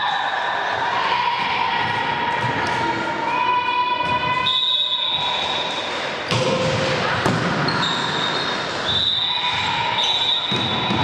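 Volleyball rally: sharp hits of the ball with high-pitched shouts and cheers from players and spectators, echoing in a large sports hall.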